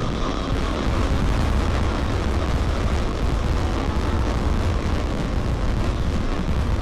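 Fireworks going off in a dense, unbroken barrage: a steady low rumble packed with crackling bursts, with no single bang standing out.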